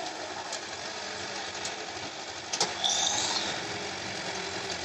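Heavy diesel machinery running steadily, with a sharp knock about two and a half seconds in, followed by a brief high squeal.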